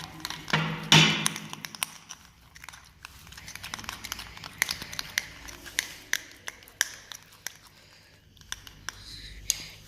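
Homemade slime being worked and stirred in a bowl, giving a run of small wet clicks and crackles, the loudest in the first second or so.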